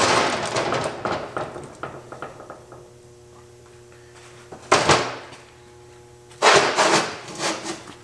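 A BMW E36 rear trailing arm, with its brake rotor and caliper, being shifted and handled on a wooden workbench. A rubbing scrape at the start tapers off, then comes a single clunk about five seconds in and a short run of knocks and clatter a couple of seconds later.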